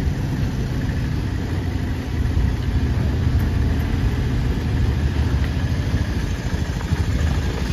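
Motor vehicle running steadily, a low rumble with a noisy hiss above it.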